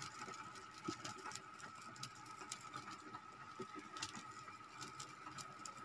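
Pot of wild pig meat and broth at a rolling boil on a gas burner, faint bubbling with small scattered pops, over a faint steady high tone.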